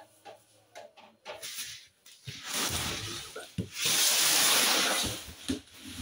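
Washed laundry being pulled out of a Hoover front-loading washing machine's drum: cloth rubbing and rustling against the drum and door seal, with a longer, louder swish about four seconds in and scattered light knocks.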